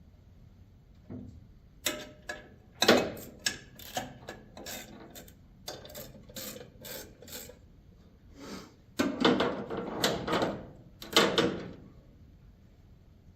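Irregular knocks, clinks and scraping of metal parts being handled and shifted: a new water pump and its backing plate being worked into alignment on the engine.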